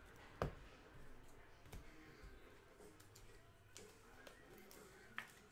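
Near silence broken by a few sharp clicks and light taps of handling a trading card and a rigid plastic top loader, the loudest about half a second in and another near the end.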